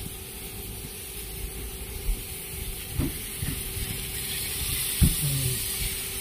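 Steady hiss with a low rumble, broken by knocks about two and three seconds in and a louder knock near five seconds as the hot pan of grilled clams is set down on a woven trivet.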